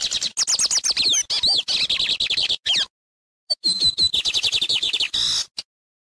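Lined seedeater singing: two loud phrases of rapid high notes, the second beginning about half a second after the first stops, near the three-second mark.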